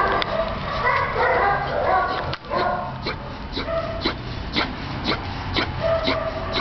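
Dogs barking, yipping and whimpering in a concrete shelter kennel. Short pitched cries come in the first couple of seconds, then a run of short, sharp barks.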